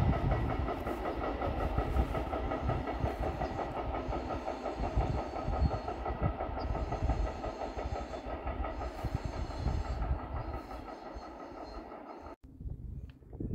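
Freight train of empty wagons rolling away on the main line: wheels on rail rattling and clacking with a steady ring, slowly fading as it recedes, then cut off sharply near the end.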